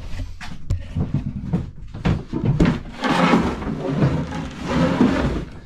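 Plywood boards being handled on a wooden workbench: a run of light knocks and clatters, then about two and a half seconds of wood scraping and sliding on wood.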